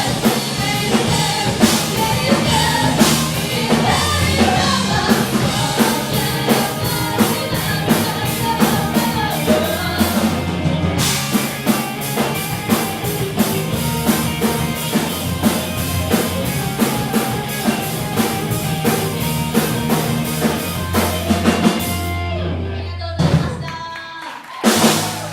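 A rock band playing, with a drum kit, guitar and singing. The music falls away about two seconds before the end, then comes one final loud hit.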